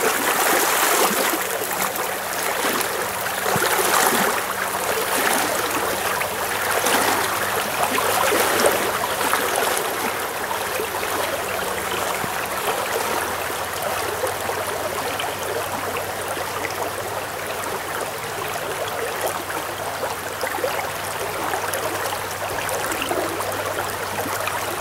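Shallow trout stream flowing over riffles in a steady wash, with uneven splashing from legs in waders pushing through the water over the first several seconds before it settles.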